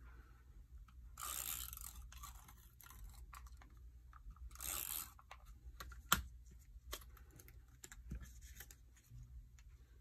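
Tape glue runner drawn along paper, two short scratchy strokes about a second and four and a half seconds in, followed by paper strips being handled and one sharp click about six seconds in.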